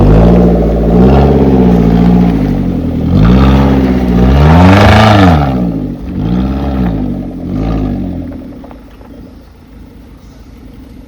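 A 4x4 SUV's engine revving close by in repeated surges, pitch climbing and dropping several times. The longest, loudest rev comes near the middle, then two short blips, before the engine falls back to a much lower, quieter sound about three-quarters of the way through.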